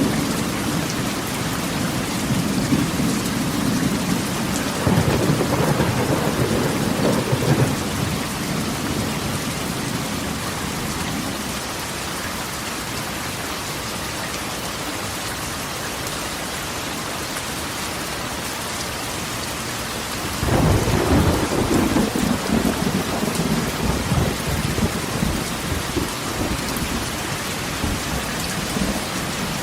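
Steady rain falling on a corrugated tin roof, with thunder rolling: low rumbles a few seconds in, and a louder roll of thunder that breaks in suddenly about two-thirds of the way through and slowly dies away.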